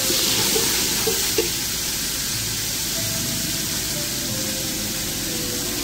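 Spice masala of ginger-garlic paste, yogurt, fennel and ground cumin frying in hot oil in a steel pot: a steady, even sizzle.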